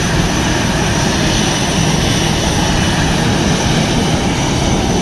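Airliner engines running close by: a loud, steady noise with a faint high whine over it.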